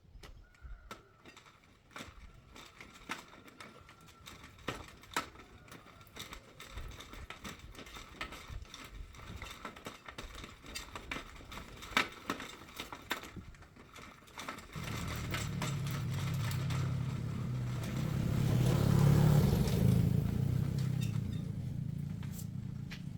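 Scattered short clicks and taps of hand work on bicycle parts. About two-thirds of the way in, a low motor hum sets in, swells to a peak and then eases off.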